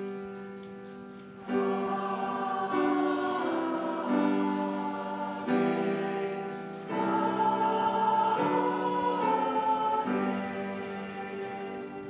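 Church choir singing slow, sustained chords, moving to a new chord about every one to two seconds.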